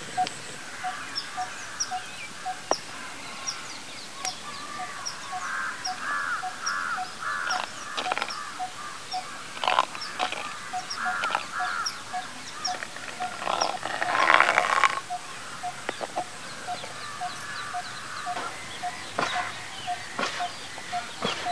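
Several birds calling: one repeats a short low note about twice a second, while others chirp and call over it, with a louder burst of calling about two-thirds of the way through.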